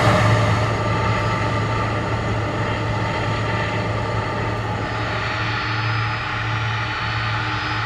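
Boeing 767-300ER's jet engines running at taxi power: a steady low drone with a hissing whine on top that eases off about halfway through.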